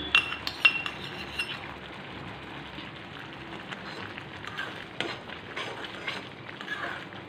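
A steel spoon stirring and scraping thick mango kaadi in a metal pan, working in freshly added ghee. A few sharp clinks of spoon on pan come in the first second and a half, then softer scraping with an occasional light clink.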